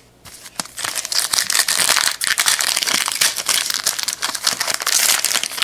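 Foil wrapper of a Donruss Optic card pack being torn open and crinkled by hand: a dense, loud crackling that starts a moment in and goes on without a break.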